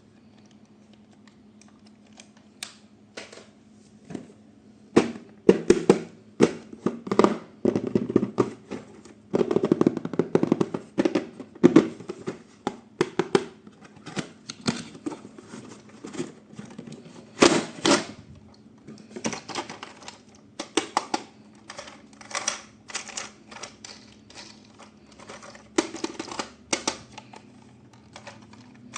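Irregular clicks, taps and knocks of hands handling hard plastic toys and their packaging, with bursts of rustling, loudest about ten seconds in and again near eighteen seconds.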